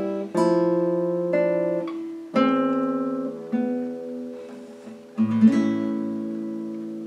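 Nylon-string classical guitar playing a few slow, spaced chords, each left to ring; about five seconds in a final strummed chord closes the piece and rings on, slowly fading.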